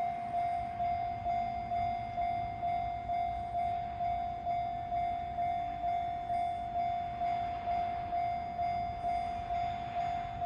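Japanese level-crossing warning bell ringing a single clanging tone about twice a second, evenly and without pause. It signals that the crossing is closed for an approaching train.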